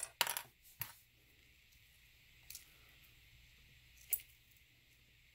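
Handling of a small vinyl strip being folded and pressed down: a brief crinkling rustle at the start, then a sharp click just under a second in, a faint tick, and another sharp click a little after four seconds.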